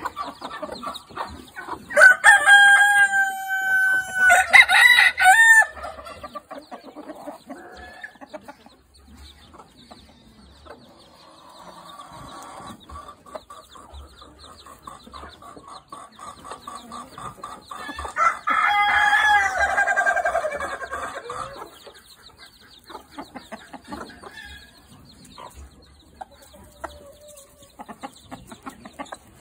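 Rooster crowing loudly about two seconds in, a call of several held notes, and crowing again later with a call that falls in pitch at its end. In between, soft hen clucking.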